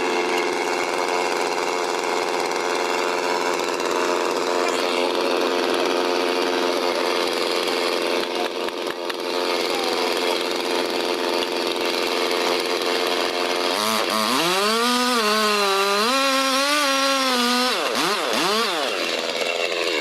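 Chainsaw running steadily at high revs. About two-thirds of the way through its pitch drops and wavers up and down, then it gives a couple of quick rev sweeps before cutting off at the very end.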